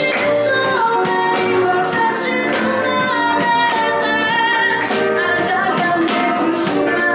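Live band music: a woman sings lead into a microphone over drums with cymbals and accompanying instruments.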